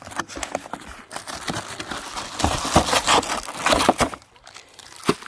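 Packaging being opened and rummaged through: crinkling and rustling with scattered clicks and knocks, loudest about halfway through.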